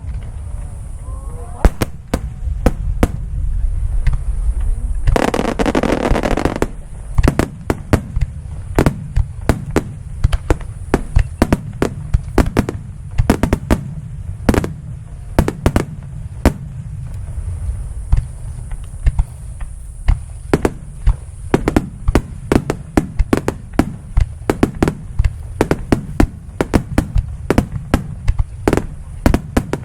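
Aerial fireworks display: a rapid barrage of shell bursts, many sharp bangs a second over a continuous low rumble, with a dense hissing stretch of about a second and a half some five seconds in.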